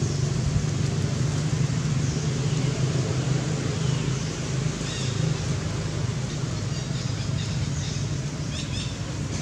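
Steady low engine hum, with a few faint high chirps about halfway through and again near the end.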